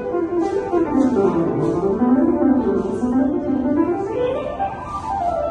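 Piano music: a line of notes that sinks in pitch and then climbs back up.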